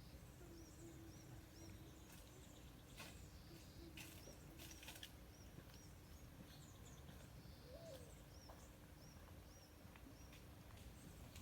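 Near silence: faint outdoor ambience with a small bird giving short high chirps in little runs of two or three, over a faint steady hum. No sprinkler water is heard running.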